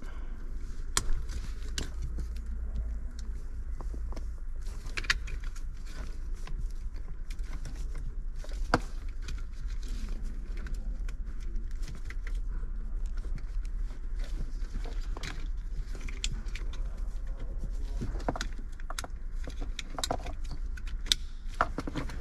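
Scattered light clicks and knocks of parts and tools being handled during a car-audio installation, over a steady low hum.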